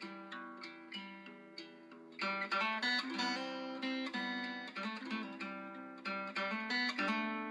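Background music: acoustic guitar picking notes, softer for the first couple of seconds and then fuller.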